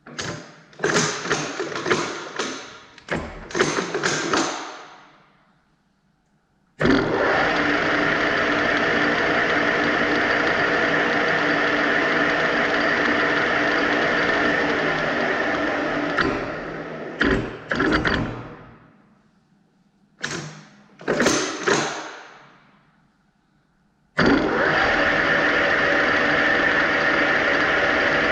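Metal lathe running at a steady speed with a camera spinning in its chuck, a constant mechanical hum and whine that winds down, then starts again abruptly later on. Before each run come several sharp clunks and knocks, like the lathe's levers being worked.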